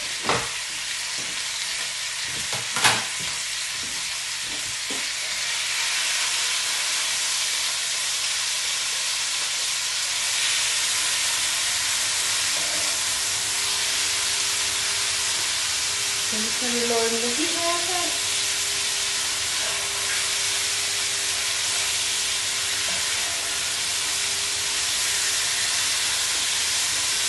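Raw chicken strips frying in hot oil in a wok: a steady sizzle that gets a little louder about six seconds in. Two sharp clicks in the first three seconds as the pieces are turned.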